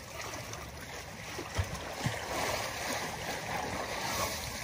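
Shallow river water sloshing and splashing as an elephant lies and moves in it, with two short low thumps about a second and a half and two seconds in.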